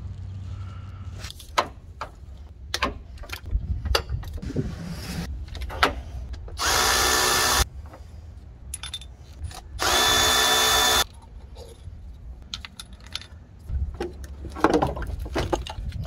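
A handheld power tool runs in two bursts of about a second each, some three seconds apart, backing out the A/C compressor's mounting bolts. Clicks and metal clanks of tools are heard between the bursts.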